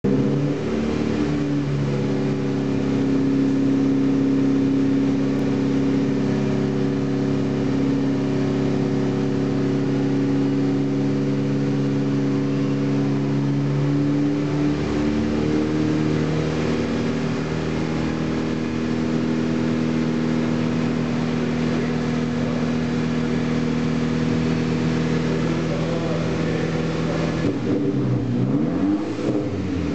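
Volkswagen Golf GTI's turbocharged four-cylinder idling through a newly fitted aftermarket downpipe and Magnaflow muffler, heard at the tailpipe. The idle holds steady, shifting slightly in pitch a couple of times, with a brief change in engine speed near the end.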